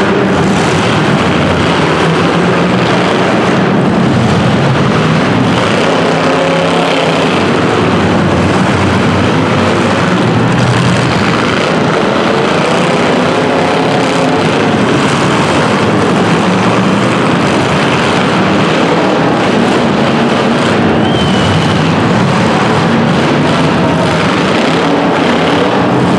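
Loud, steady running of drag-race car engines, several engine notes wavering and overlapping over a dense rumble.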